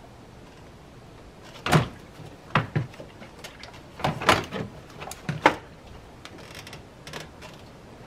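Plastic coolant reservoir being handled and knocked about in an engine bay: a string of sharp knocks and clunks between about two and five and a half seconds in.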